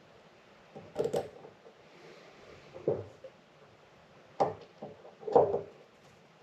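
Light knocks and clicks of small parts being handled while a vacuum-operated motorcycle fuel petcock is reassembled, in four short bursts a second or two apart.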